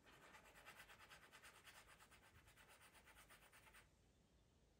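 Pastel pencil being sharpened on sandpaper to bring its blunt tip to a point: quick, even rubbing strokes that stop a little before the end.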